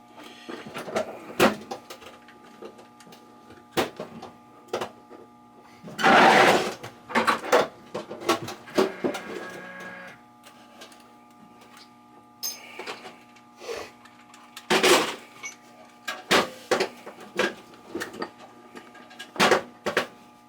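Clicks, knocks and rattles of hand tools and wiring being worked on, as an electrical switch is taken out, with a louder scraping rattle about six seconds in over a faint steady hum.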